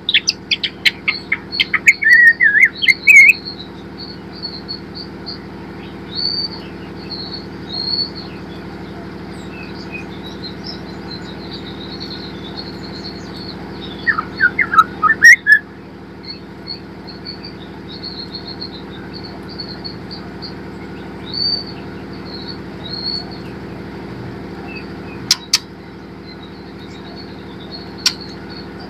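Juvenile white-rumped shama calling: loud bursts of quick chirps in the first few seconds and again halfway through, over thin, continuous high twittering. A steady low hum runs underneath, and a couple of sharp clicks come near the end.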